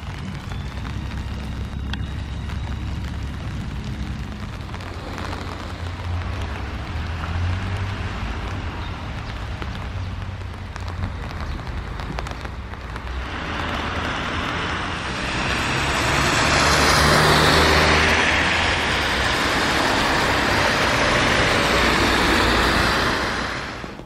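Road traffic on a wet road: a steady low engine rumble, then a broad tyre hiss that swells about halfway through and stays loud until it cuts off suddenly near the end.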